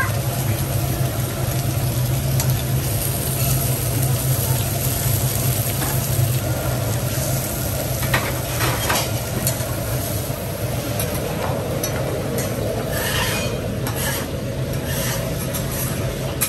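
Fish and stingray on banana leaves sizzling on a hot flat-top griddle, over a steady low hum, with a few light clicks.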